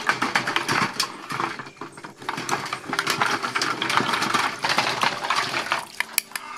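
Water splashing and sloshing in a stainless steel bowl as hands scrub large sea snail shells, the hard shells clacking against one another and the bowl in a quick, irregular run of knocks.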